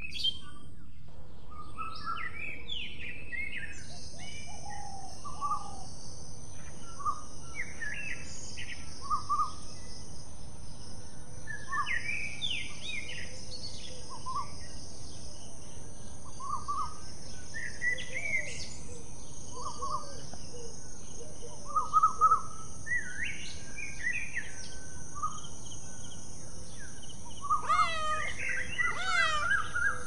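Several birds chirping in short, scattered calls over a steady high-pitched hiss, with a quicker run of falling notes near the end.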